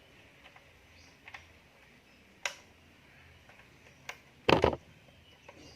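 Footswitches on a Korg AX1000G guitar multi-effects pedal being pressed one at a time: a few separate clicks, the loudest a double click about four and a half seconds in. The switches are somewhat stiff to press.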